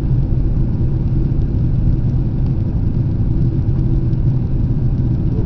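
Steady low rumble of a jet airliner heard from inside the passenger cabin: engine and airflow noise while the plane is in flight on its way in to land.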